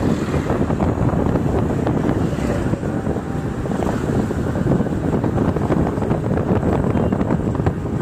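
Wind buffeting the phone's microphone while on the move: a steady low rumble and rush.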